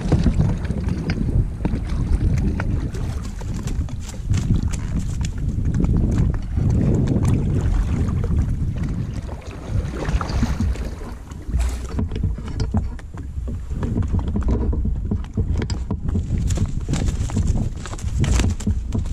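A kayak being paddled, with scattered knocks and splashes from the paddle and the plastic hull, over a steady low rumble of wind on the microphone.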